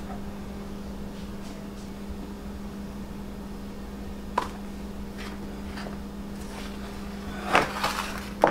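Steady low hum, with one sharp click about halfway and a few short rustling, handling sounds near the end as a sheet of soft bread dough is lifted over a baking pan.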